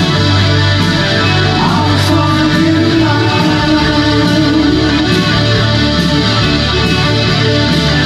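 New wave band playing live: electric guitar over a synthesizer keyboard, with a bass line and a steady beat.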